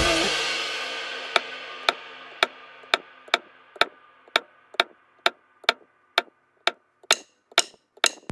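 Checkered leather beveling tool struck with a mallet on vegetable-tanned leather over a granite slab: sharp taps, about two a second, as the beveler is walked along the border line. The tail of background music dies away over the first few seconds.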